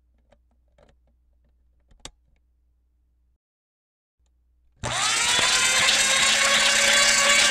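A few faint ticks and one sharp tap about two seconds in, then about five seconds in a grinder motor starts up with a quick rising whine that levels off and runs steadily with a loud grinding rasp.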